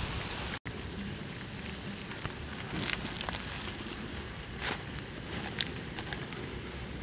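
Snails roasting in their shells on a small charcoal fire: a steady hiss with scattered small crackles and clicks. The sound drops out for an instant about half a second in.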